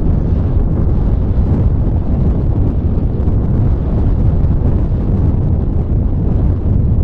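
Wind rushing over the onboard camera's microphone in the open nose of an Easyglider 4 RC sailplane as it glides low on its landing approach: a steady, loud, deep buffeting.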